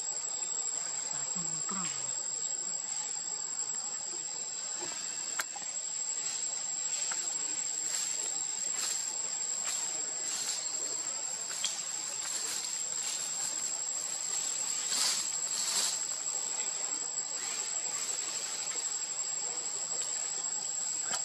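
Chorus of forest insects singing a steady high-pitched drone, with a fainter second buzz below it. Pulsing swells run through the middle, the strongest about three quarters of the way in.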